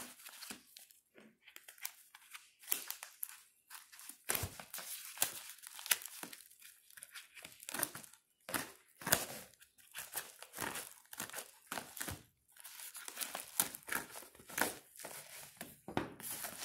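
Padded mailer envelope being cut with small scissors and pulled open: irregular crinkling and crackling, busiest in the last few seconds.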